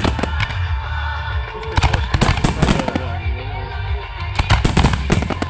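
Aerial fireworks display at close range: shells and mines bursting in quick clusters of bangs and crackles, one as it begins, another about two seconds in and a third near the end.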